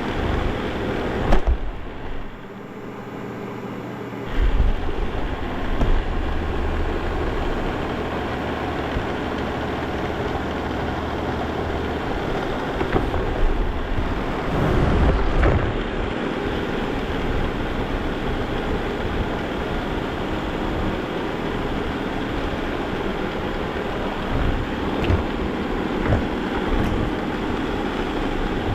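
Vacuum cleaner running, its motor a steady loud rush heard close up as it is pushed over the floor, with a few knocks and bumps. The sound drops briefly about two seconds in and swells again around the middle.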